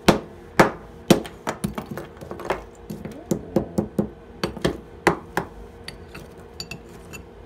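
Hammer blows breaking a plaster investment mold away from a zinc casting, about two strikes a second, with plaster chunks cracking off. The heaviest blows come in the first second or so, then they taper to lighter taps and small clinks near the end.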